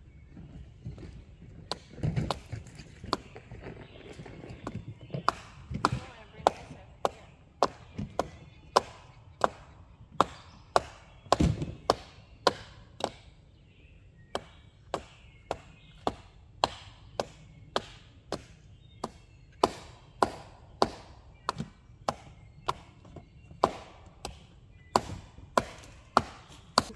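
Wood being chopped with a hand-held blade: a long run of sharp, separate chops, ragged for the first few seconds and then steady at about one and a half a second.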